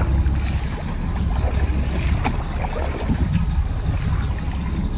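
Wind buffeting the microphone in a steady low rumble, over water splashing at the side of a boat as a fish is grabbed by hand and pulled from the surface.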